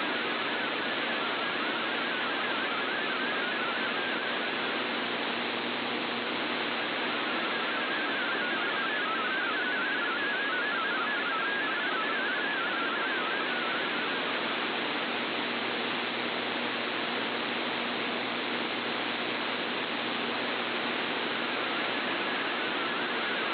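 MFSK32 digital data signal from a shortwave broadcast, received by a Kenwood TS-480SAT in AM mode: a speckled band of rapidly shifting tones around 1.5 kHz buried in steady static hiss. The weak reception leaves parts of the decoded text garbled.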